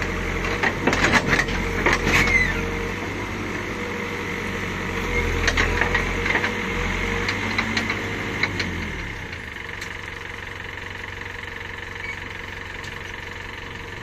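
Caterpillar backhoe loader's diesel engine working the hydraulics as the boom lifts the bucket out of the drain and folds up, with a few sharp knocks in the first couple of seconds. About nine seconds in the engine drops back to a steady idle.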